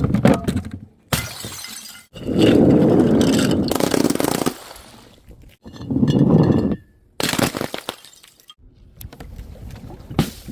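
Glass bottles smashing and shattering, several separate breaks cut one after another, each with a burst of crashing and clattering shards.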